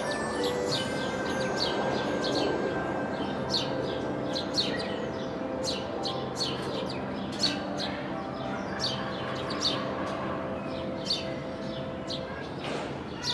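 Small birds chirping outdoors: short high chirps, one or two a second at uneven intervals, over steady held tones.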